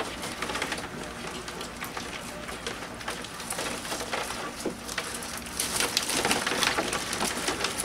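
Live land crabs (purple mangrove crabs and blue crabs) clicking and scraping their shells and legs against a plastic bin and each other as a hand rummages among them in shallow water. It is a dense patter of small clicks that grows louder about five and a half seconds in.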